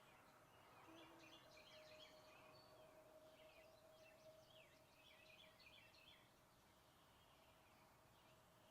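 Near silence, with faint bird chirps for a few seconds in the middle and a faint steady hum underneath.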